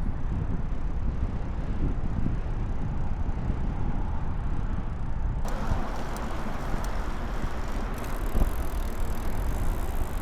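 Wind rumbling on the microphone of a bicycle ridden into a strong headwind, with a hiss of road noise. The hiss steps up abruptly about five and a half seconds in.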